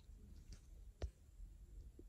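Near silence with a faint room hush, broken once about halfway through by a single short click.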